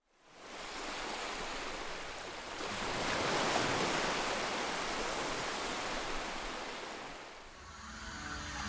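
Open sea rushing beneath the ship, mixed with wind. The sound fades in from silence, swells about three seconds in and eases off near the end.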